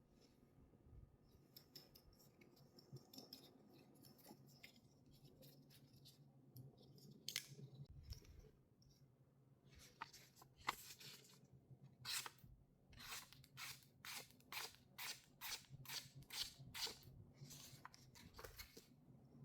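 Folding knife with a liner lock being worked open and shut, a series of sharp metallic clicks and snicks: scattered and faint at first, then a quick run of about two a second from about halfway through.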